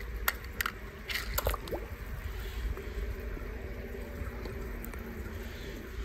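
A die-cast metal toy tow truck drops into a swimming pool: a few sharp plops and splashes in the first second and a half, then steady faint water noise.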